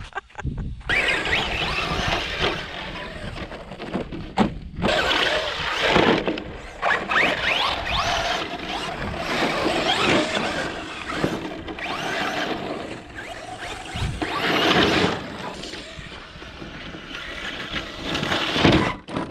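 Electric RC short-course trucks running hard on loose sandy dirt: motor and drivetrain whine rising and falling with the throttle, with tyres scrabbling and throwing sand, briefly dropping off about half a second in and again around four and a half seconds in.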